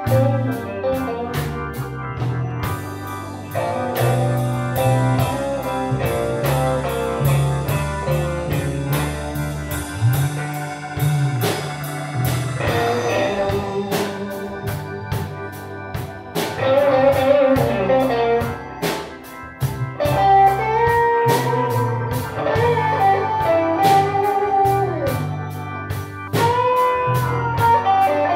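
Live blues band playing: electric guitar leads with bent notes over bass and drums, the bends growing more frequent from about halfway through.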